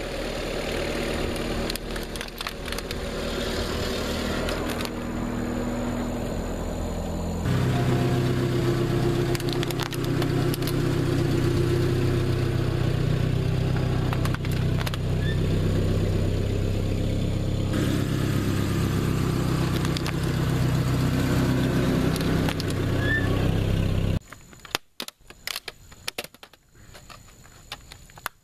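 A four-wheel-drive truck's engine running at low revs as the truck creeps over a laptop. About 24 seconds in the engine sound cuts off, leaving scattered clicks and rattles of the broken plastic Toshiba laptop being handled.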